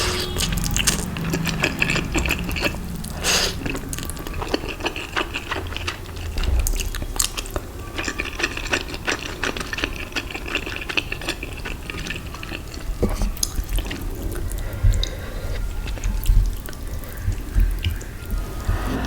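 Close-miked eating sounds: wet chewing with many small lip smacks and mouth clicks.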